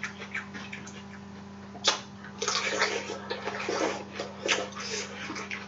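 Wet squelching and crackling of saucy seafood boil being handled, with a sharp click about two seconds in followed by a denser run of wet, sloppy sounds.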